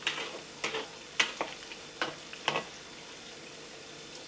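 Slotted metal spatula scraping and knocking against a steel wok while pork pieces fry in sauce with a steady sizzle. There are about six sharp strokes in the first two and a half seconds, then only the sizzle.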